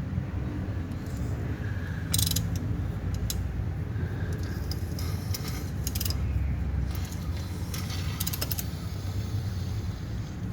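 Metal tools and engine parts clinking and rattling in a few short bursts while the engine's bottom end is worked on, over a steady low hum.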